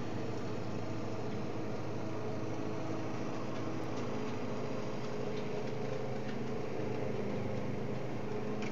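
A small motor running steadily: an even mechanical drone with a few steady tones, unchanging throughout.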